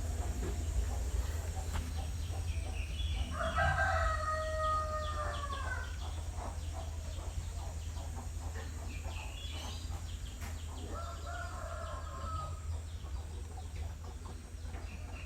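Rooster crowing: one loud crow a few seconds in, then a second, fainter crow about twice as far in, over a steady low rumble.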